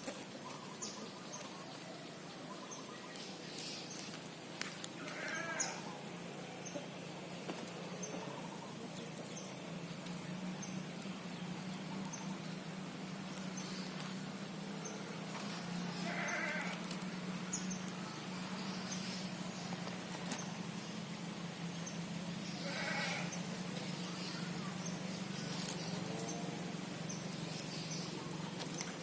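An animal bleating about four times, the calls several seconds apart, over a steady low hum and faint high chirps repeating about once a second.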